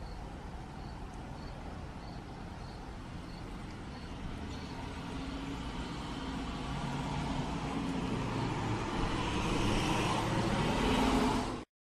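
A road vehicle passing on the street, its engine and tyre noise growing steadily louder over the last several seconds, over a steady outdoor hiss. The sound cuts off abruptly near the end.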